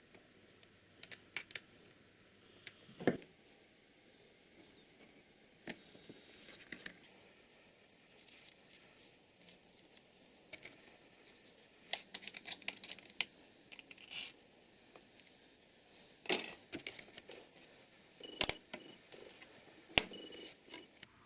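Irregular clicks and taps of small hard parts and tools being handled on an HP Envy laptop as it is taken apart, with a quick flurry of clicks about twelve seconds in.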